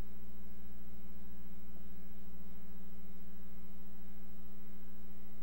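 Steady electrical mains hum and buzz: a low drone with a stack of higher steady tones on top, unchanging throughout.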